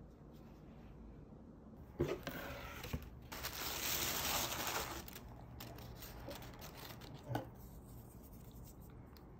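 Unboxing in a cardboard box. Light knocks come about two seconds in and again a second later, then tissue paper rustles loudly for about two seconds as it is pulled back from a pair of sandals. Softer rustling follows, with one more knock near the end.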